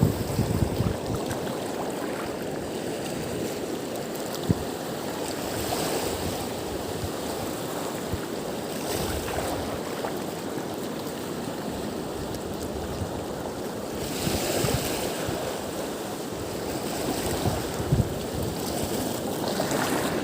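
Steady rush of wind and water at an estuary, with a few short faint knocks and a brief swell in the hiss about two-thirds of the way through.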